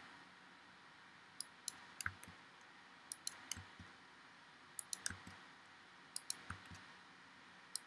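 Faint, sharp clicks of a computer mouse and keyboard, about a dozen, scattered and often in quick pairs, as an edge is extruded and placed in a 3D modelling program.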